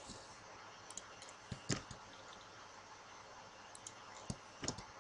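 Scattered clicks of a computer mouse and keyboard as a drawing is made and a letter typed, with sharper clicks about a second and a half in and again near the end, over faint steady room hiss.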